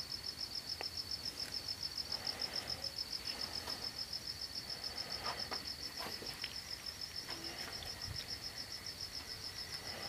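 Crickets chirping steadily at night, a high, evenly pulsing trill that never stops, with a few faint clicks partway through.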